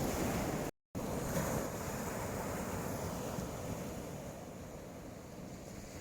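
Wind blowing on the microphone over waves washing on the shore: a steady rushing noise that cuts out completely for a moment just under a second in.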